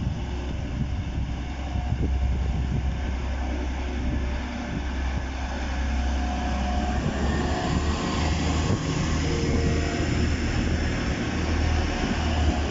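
Steady low rumble of a running vehicle engine, with a few short steady tones coming in from about six seconds in.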